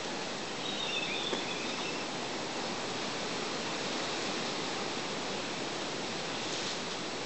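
Steady hiss of outdoor forest ambience, with a faint high-pitched call about a second in.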